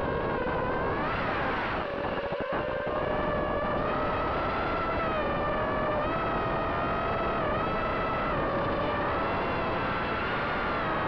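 FPV racing quadcopter's electric motors and propellers whining steadily over a rush of wind, the pitch rising and falling with the throttle. About a second in the pitch swells, and just after two seconds the motors briefly stutter.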